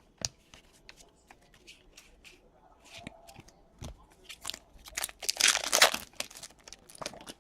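Trading cards being handled: light clicks and flicks as cards are flipped and slid, then a louder crinkling rustle about five seconds in.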